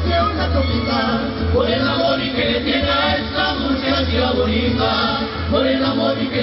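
Mariachi ensemble playing a son jalisciense live, men's voices singing together over violins, strummed guitars and the deep bass line of a guitarrón.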